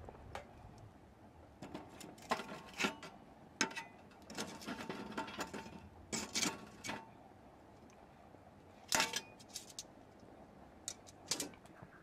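Metal tongs moving burning charcoal pieces in a small stainless-steel grill: irregular clinks and scrapes of metal against metal and charcoal, some with a short ring.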